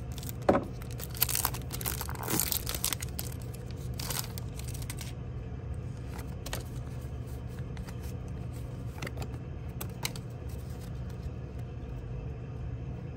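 Foil wrapper of a Pokémon TCG Astral Radiance booster pack being torn open and crinkled, a quick run of sharp rips in the first few seconds. Then cards slide against each other with a few soft clicks, over a steady low hum.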